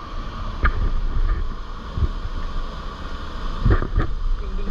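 Steady rush of a waterfall, with several brief low thumps.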